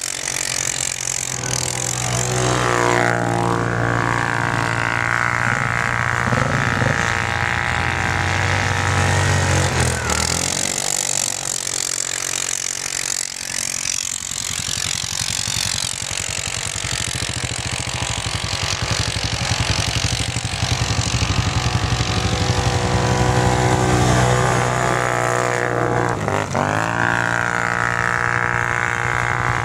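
ATV engines running hard at high revs as the quads spin through snow on the ice. The engine pitch drops and climbs back up twice, about ten seconds in and again near the end, as the throttle is let off and opened again.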